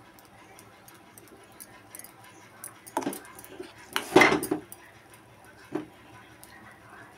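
Small spoon clinking and scraping against a hot non-stick appe pan as semolina batter is spooned into its cavities, with scattered light clicks and the loudest scrape just after four seconds in.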